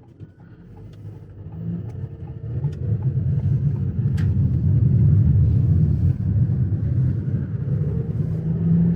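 Car driving, heard from inside the cabin: a low road and engine rumble that builds over the first three seconds, then holds steady.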